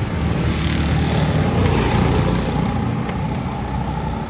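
A motor vehicle engine running close by amid street traffic noise, growing louder about a second in and easing off toward the end.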